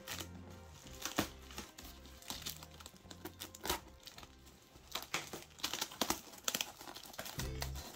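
A box cutter slicing cardboard and packing tape, with plastic bubble wrap crinkling as the parcel is opened: a series of sharp crackles and scrapes, busiest past the middle. Soft background music with low notes plays underneath.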